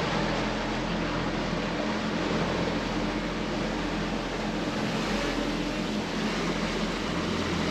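Twin Honda four-stroke outboard motors running steadily as the catamaran cruises, a low even hum under the rush of the wake and wind.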